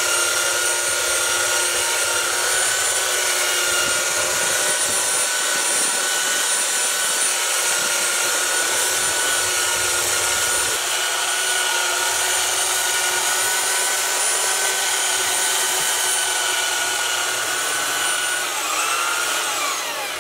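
Handheld electric belt sander running with a steady whine as it sands the epoxy fairing coat flush on a fiberglass boat transom. Its pitch dips and comes back up briefly near the end.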